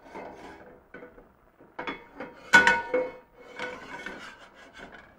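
Stainless steel skillet shifted and slid on a gas cooktop's grate: irregular scraping and small clinks, with one louder ringing metallic clank about two and a half seconds in.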